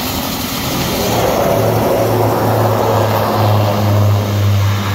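Small twin-turboprop plane's engines and propellers running, a steady low droning hum that grows louder about a second and a half in.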